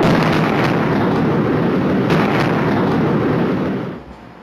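Sustained deep rumbling roar from a massive explosion, with a few sharp cracks in it, dying away near the end.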